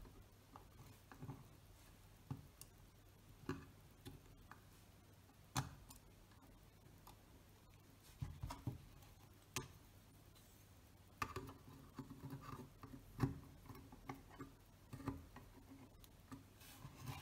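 Faint, scattered clicks and small metal knocks of steel lens spanners gripping and slipping against a camera's shutter retaining ring, with a busier run of taps in the second half. The ring is stuck and not yet turning.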